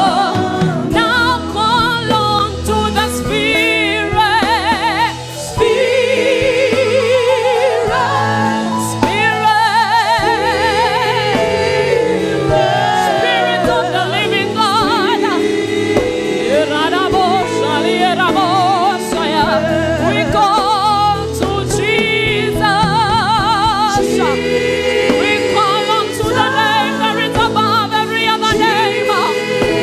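Gospel worship music: several voices singing together with a wide vibrato over sustained low accompaniment.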